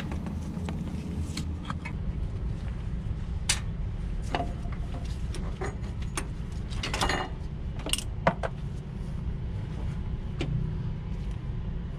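Occasional light clinks and taps of hand tools at work on a forklift's brake master cylinder, over a steady low rumble.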